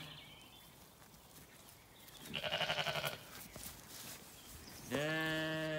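Zwartbles sheep bleating twice: a short, wavering bleat about two seconds in, then a longer, steady bleat near the end.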